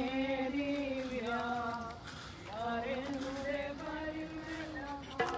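Slow devotional hymn sung in long held, gliding notes, with a short break in the phrase about two seconds in. Percussion strikes come in near the end.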